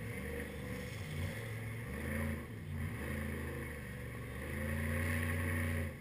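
Off-road 4x4 truck engine revving hard as it climbs a steep sandy slope, its pitch rising and falling with repeated throttle bursts and holding at its loudest for the last second or two.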